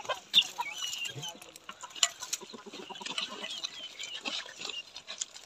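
Chickens clucking, with short high chirps throughout and scattered light clicks.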